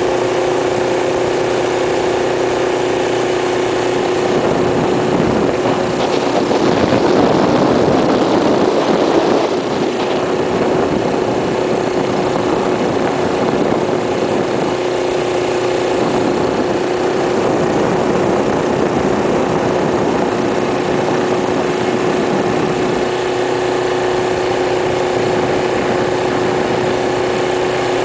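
1972 Rupp Roadster minibike's Tecumseh single-cylinder engine running at a steady cruising speed, heard from on the bike. A louder rushing noise swells for a few seconds about a quarter of the way in, then the steady engine note carries on.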